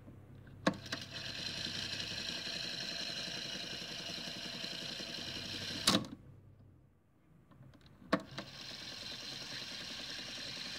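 Cassette deck's piano-key transport: a key clunks down and the tape fast-winds with a steady motor whir for about five seconds. The Stop key then clunks, and after a short lull another key clunks and the tape winds again, on rewind.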